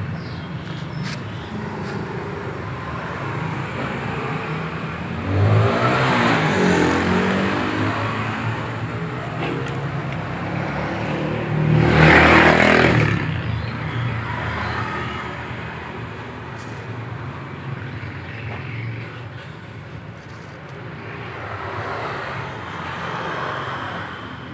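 Vehicle engines running and revving in the background over a steady engine hum, swelling loudest about six seconds in and again about twelve seconds in, then fading.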